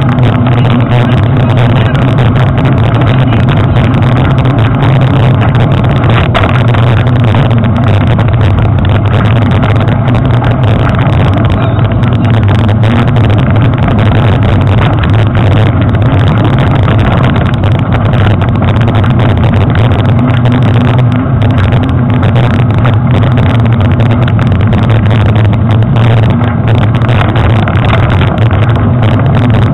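Loud, steady rumble picked up by a handlebar-mounted action camera in its waterproof housing as a mountain bike rolls over a dirt trail: tyre and trail vibration through the bars, with wind on the microphone.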